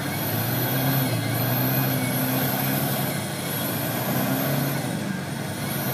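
Land Rover engine running on an off-road drive, its pitch rising and falling over a steady rush of noise. A thin high whine dips in pitch every second or so.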